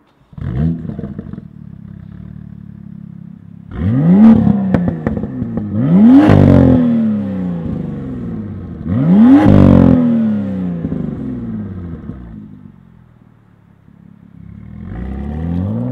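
BMW M2's turbocharged straight-six through a Dinan Free Flow exhaust with the stock resonator, standing still and being revved. A short blip about a third of a second in settles to idle, then three rev-ups at about 4, 6 and 9.5 seconds each climb and fall back to idle, and another rev starts near the end.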